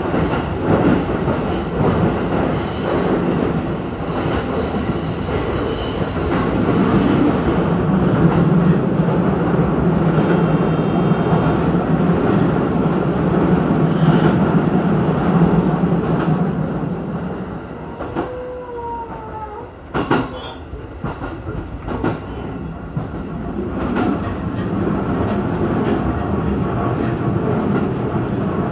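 Ome Line electric commuter train running along the track: steady rolling rumble with rail clicks. About two-thirds of the way through, the noise eases off, with a short faint squeal and a few sharp clicks, then builds up again.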